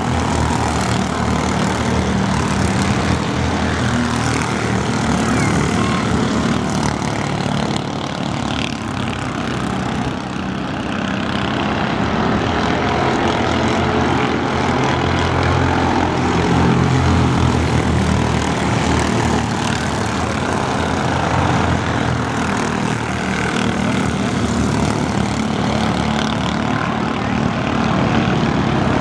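Mini Cup race cars' engines running at racing speed on a short oval track: a loud, continuous engine drone that swells and eases slightly as the cars circulate.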